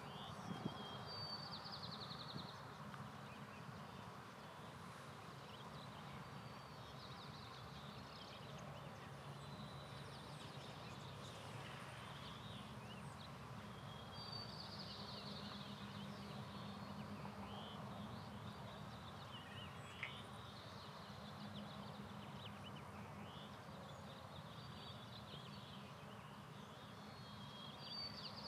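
Faint outdoor ambience: small birds calling in short high trills every few seconds over a low steady hum.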